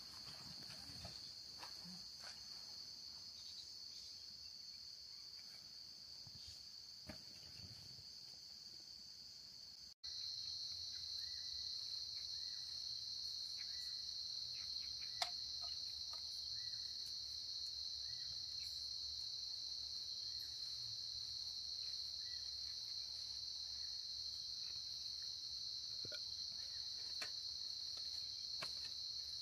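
Steady high-pitched chorus of crickets chirring. It cuts out for an instant about a third of the way in and comes back a little louder. A single sharp tap sounds about halfway through.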